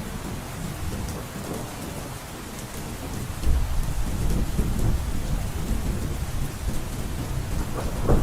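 Heavy rain drumming steadily on a roof, with a deep rumble underneath that swells suddenly about three and a half seconds in. A brief knock sounds near the end.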